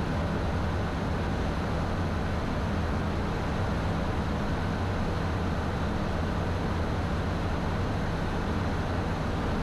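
Steady cockpit noise of a Beechcraft Premier I business jet cruising near its 320-knot limit: rushing airflow over a low, even hum from the turbofans.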